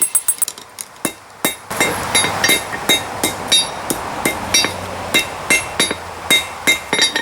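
Hand hammer striking hot steel on an anvil, forging the jaws of long-handled pliers into round tongs: a run of ringing blows at about three a second, with a few scattered taps before it and short pauses between groups.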